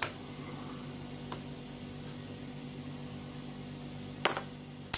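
Steady low hum in the background, with a faint click about a second in and two sharp clicks near the end from a small TSA luggage lock and key being handled.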